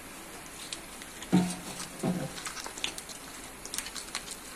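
Raw crab pieces going into a bowl of wet spiced flour batter and being mixed in by hand: two soft thuds about a second and a half and two seconds in, then a run of light clicks and squelches as the shells knock against each other in the batter.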